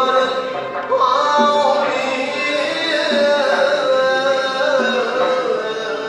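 Male voice singing an Uzbek maqom melody in ornamented, gliding phrases, accompanied by an ensemble of plucked and bowed long-necked string instruments.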